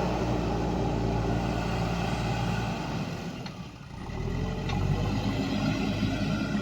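Heavy diesel engine running steadily. It drops away briefly about four seconds in, then comes back with a short rise in pitch.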